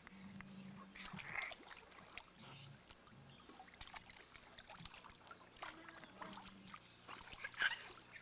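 Small splashes and sloshing of water in a plastic kiddie pool as a toddler moves and sits in it, with a louder splash about a second in and another near the end.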